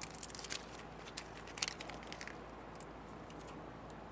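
Clear plastic transfer film being peeled off tire lettering stickers: faint crackling with a few scattered sharp ticks.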